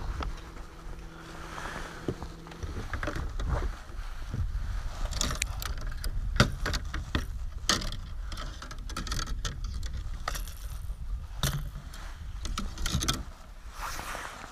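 On a fishing boat: a low rumble of wind and water, with a steady low hum that stops about three seconds in, then a run of scattered clicks, knocks and small rattles of fishing gear being handled.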